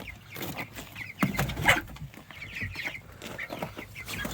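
Silkie chickens clucking in a run of short, irregular calls, the loudest about a second and a half in.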